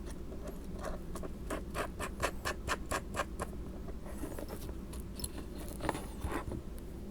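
Small aluminium beam parts and M3 screws being handled and fastened by hand: a run of quick, evenly spaced clicks, about three or four a second, then scattered clicks and rubbing.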